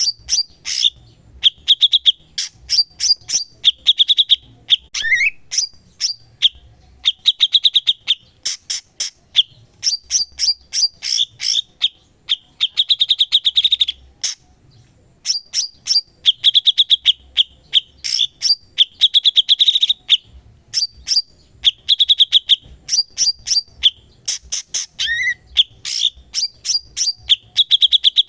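A cucak cungkok singing nonstop (gacor). It gives rapid chattering runs of sharp repeated chips and buzzy high trills in quick bursts with short pauses, with a brief rising whistle about five seconds in and again near the end.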